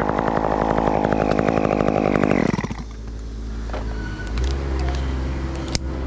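Chainsaw running steadily, then winding down about two and a half seconds in. A lower steady hum follows, with a sharp click near the end.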